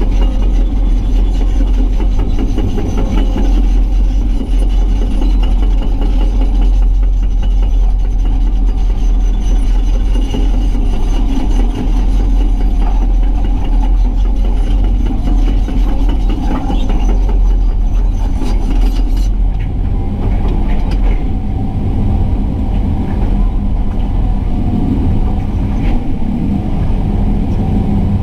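Excavator's diesel engine running steadily with a loud, deep rumble as the machine spreads and levels material.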